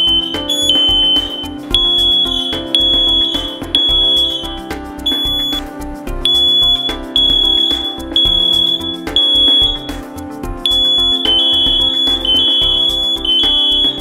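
Heiman smoke alarm sounding its alarm after detecting smoke: loud, shrill, high-pitched beeps of about half a second each, repeating with short pauses. Background music with a steady beat plays underneath.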